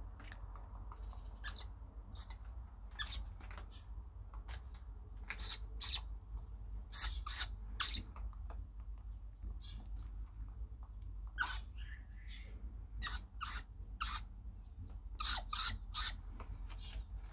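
Great grey owl chick calling while it is hand-fed: short, high-pitched squawking calls, scattered at first and then coming in quick runs of two or three in the second half.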